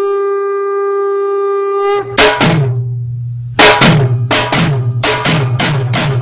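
Soundtrack music: a single steady horn-like note held for about two seconds, then it gives way to heavy drum strikes over a low bass note, about two hits a second.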